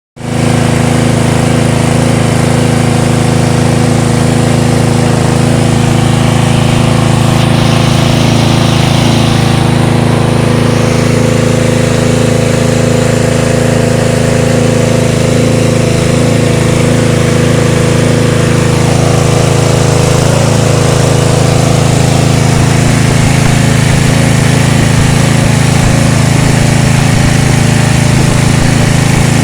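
A 7 hp petrol engine running at a steady speed, driving a combined organic-waste pulping and pellet machine. A brief higher rushing noise joins about eight seconds in.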